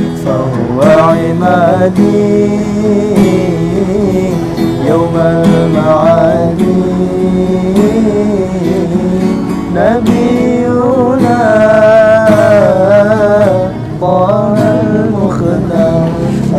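A voice singing with acoustic guitar accompaniment; the melody bends and wavers in ornamented runs over steadily played chords.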